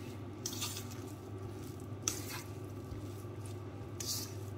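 A hand mixing mashed boiled potato with spices in a stainless-steel bowl: three short, soft wet rustles about a second and a half apart, over a steady low hum.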